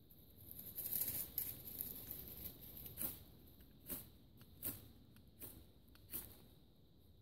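A bushcraft knife's spine scraped along a magnesium fire-starter rod over tinder to throw sparks. A longer rasping scrape comes first, then five quick sharp strikes about every 0.7 s.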